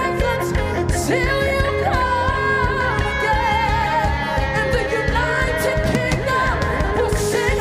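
Live worship band music with singing: a sung melody that wavers with vibrato is held over steady bass and drums with cymbal strokes.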